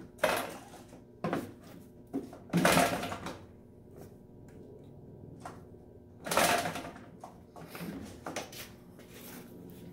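Pull-starting an Echo two-stroke backpack blower: about five short, rasping whirrs of the recoil starter cord being yanked, the loudest near three seconds in and again past six seconds, with the engine never catching. The engine is one that has blown a connecting rod.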